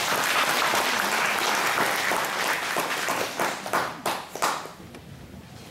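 Audience applauding, then dying away to a few last separate claps about four and a half seconds in.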